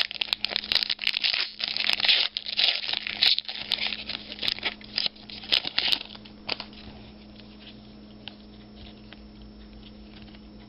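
A trading-card pack's foil wrapper crinkling and tearing as it is opened, for about six seconds. After that come only faint rustles as the cards are handled.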